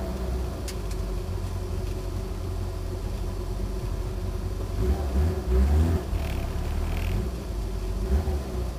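Sprint car's engine heard from inside the cabin, running at low speed, with a couple of brief revs about five to six seconds in and another near the end.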